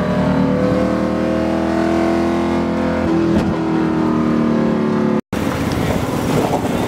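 Drift car's engine running hard, heard from inside the cabin, its pitch climbing slowly and then changing about three seconds in and easing down. It cuts off abruptly about five seconds in, replaced by a rougher, noisier background.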